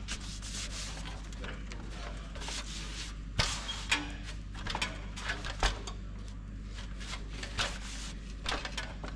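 Gloved hands sliding and rubbing over a steel car-door skin to feel for high spots after shrinking, with a few light sharp knocks on the metal, the clearest about three and a half to five and a half seconds in, over a steady low shop hum.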